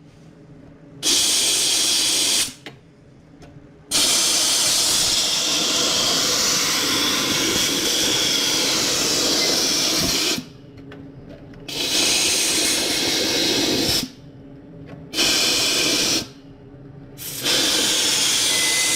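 Compressed-air blow gun hissing in repeated blasts, blowing abrasive dust and dirt out of a rear drum brake assembly. There are five blasts; the second one is long, about six seconds.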